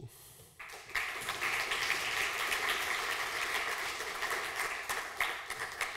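Audience applauding: many hands clapping together, starting about half a second in and thinning toward scattered claps near the end.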